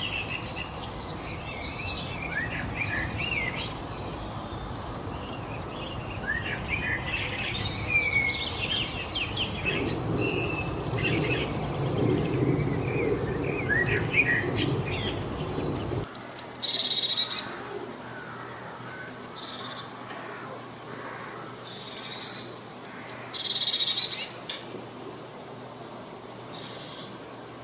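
Many birds singing and chirping together over a steady background noise. About sixteen seconds in it cuts abruptly to a quieter, sparser scene of short high chirps repeated every second or two, with a few louder calls.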